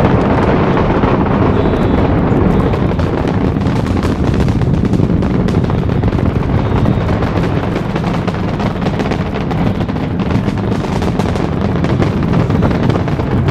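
Space Shuttle launch roar from the solid rocket boosters and main engines during ascent: a loud, steady, deep rumble laced with dense crackling.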